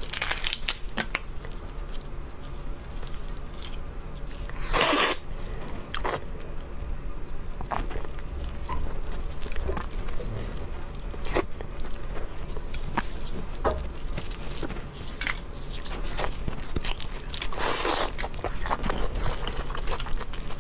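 Large cooked red shrimp being peeled and eaten: shells cracking and snapping, with biting and chewing, as scattered sharp cracks and clicks. Two longer crackling stretches come about five seconds in and near the end.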